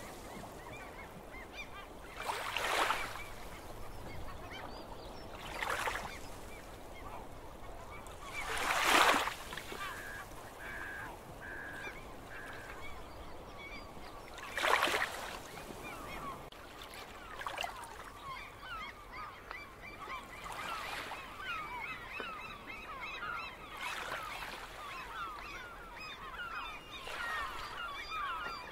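Small sea waves breaking and washing ashore every few seconds, with birds calling over them: a short run of repeated calls about ten seconds in, then many short calls through the second half.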